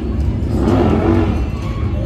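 Motorcycle engines running and revving, mixed with music.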